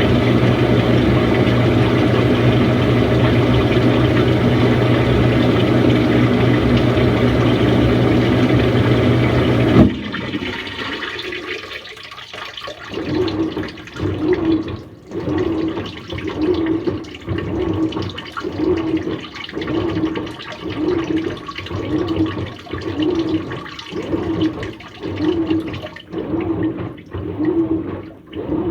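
Samsung washing machine: a steady rush of water with a low machine hum, cut off suddenly about ten seconds in. Then the drum turns back and forth, sloshing the water-laden load about once a second.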